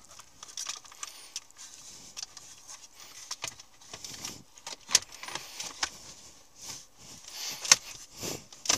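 Plastic centre-console trim and loose wiring in a car interior being handled and pressed into place: a run of irregular clicks, rattles and rustles, with a few sharper clicks, the sharpest near the end.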